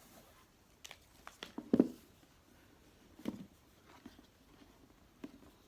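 Gift packaging being unwrapped by hand: scattered light rustles and taps, the loudest about two seconds in and another a little over three seconds in.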